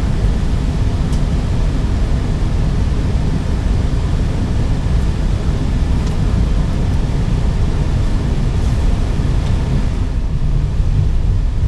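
Steady low rumble inside an Airbus A320neo cockpit on the ground before takeoff, with a few faint clicks.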